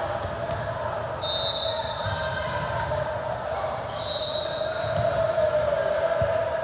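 Echoing gymnasium ambience between volleyball rallies: a murmur of voices with scattered ball bounces on the court floor, and two short high squeaks, the first just over a second in and the second about four seconds in.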